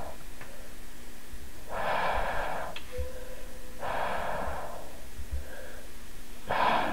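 A person breathing heavily, three long breaths about two seconds apart, over a steady low hum.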